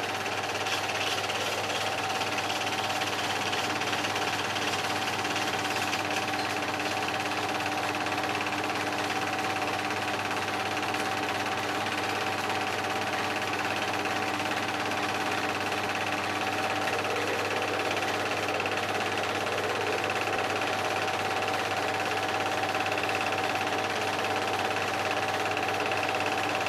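Film projector running steadily: a constant mechanical whirr and clatter with a steady hum.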